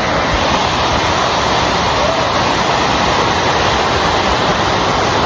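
Waterfall rushing: a loud, steady roar of falling water close by.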